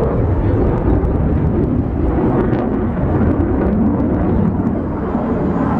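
Aircraft engine noise at an air show: a loud, steady rumble with no clear beat.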